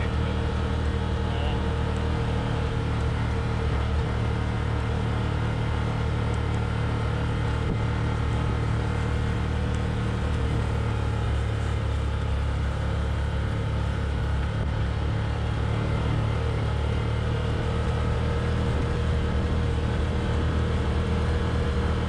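Can-Am Commander side-by-side UTV engine running at a steady speed while driving, with an even drone and no change in pitch.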